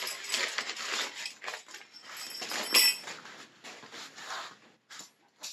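Nylon bivy sack rustling and crinkling as it is pulled out of its stuff sack and spread out on the floor, with scattered small clicks and one sharper click about three seconds in. The rustling thins out to a few separate clicks near the end.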